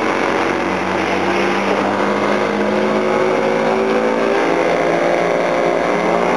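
Engines of several vintage racing cars running together as they drive through a bend. Their engine notes overlap and shift in pitch as the cars speed up and pass.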